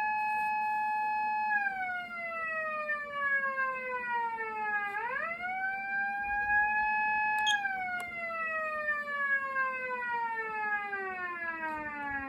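Patlite SAP-500BK-PV electronic siren amplifier sounding a Japanese police-car siren. The tone holds high, slides down, sweeps quickly back up about halfway through, holds again, then falls slowly. A couple of sharp clicks come just before the second fall.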